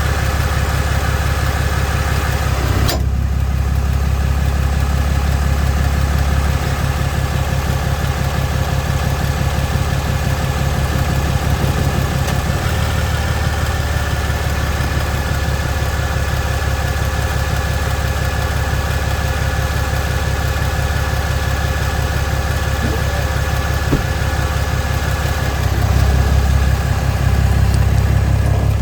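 Ram 2500 pickup engine idling steadily, with a sharp pop about three seconds in and a fainter one later on, the popping noise the owner is documenting. The idle rises slightly near the end.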